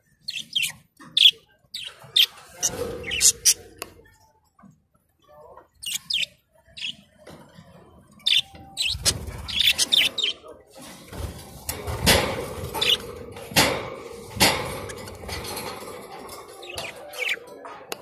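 A flock of budgerigars chirping and chattering in short, high calls, growing busier from about halfway through, with a few sharp thumps among the calls in the second half.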